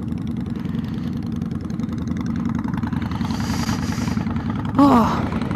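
Honda Magna's V4 motorcycle engine running steadily at low revs near idle, with a second motorcycle's engine idling close alongside.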